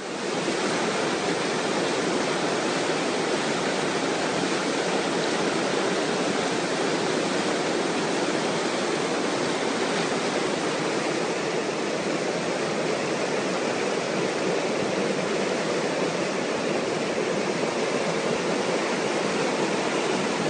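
Mountain creek in flash flood, muddy water racing over its gravel bed: a steady, unbroken rush of water.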